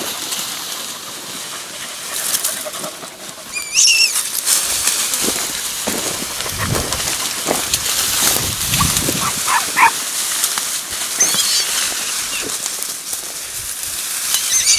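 Podenco Andaluz hunting dogs giving a few short, high-pitched yelps spaced through the stretch, over a steady rustling noise.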